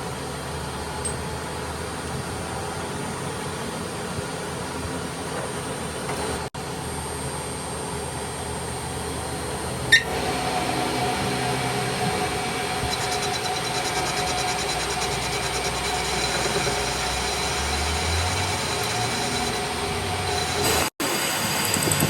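A machine running steadily, with a sharp click about ten seconds in.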